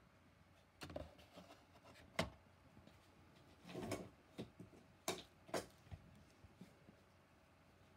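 Faint, scattered clicks and light knocks, about six over several seconds, with a short rustle about halfway through.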